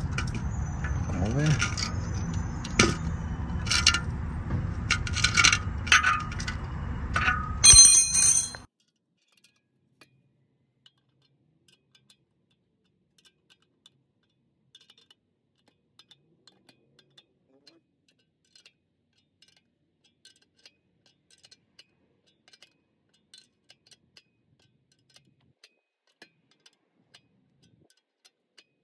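Metal clinking from a ratchet wrench and bolt being worked on the flange of a steel exhaust-manifold catalytic converter: a dozen or so sharp clinks over a low rumble, ending in a loud ringing clank about eight seconds in. After that the sound falls to near silence, with only faint scattered ticks.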